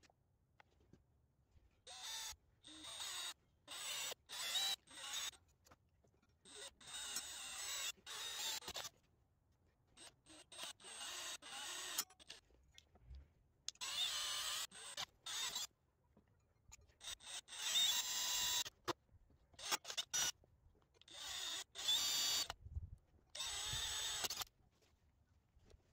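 Handheld power drill boring a twist bit through a clamped steel plate, run in repeated short bursts of a fraction of a second to about two seconds, with quiet gaps between.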